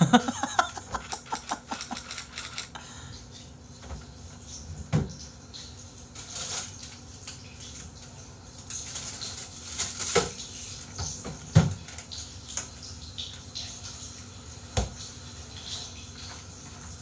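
Water from a hand-held shower spraying and splashing over a wet marmot on a tiled bathroom floor, under a steady hiss, with scattered sharp clicks and knocks. A few short sliding tones sound in the first two seconds.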